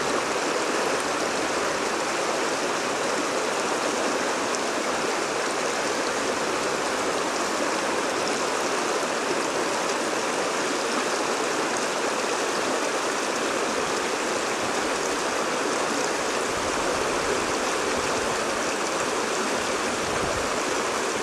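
Shallow stream rushing and splashing over rocks in small rapids, a steady, even rush of water.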